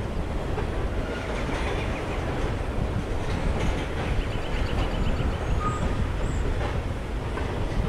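Freight train's tank cars and covered hoppers rolling slowly across a bridge: a steady rumble with clicking of wheels over the rails and a brief faint wheel squeal about two-thirds of the way through.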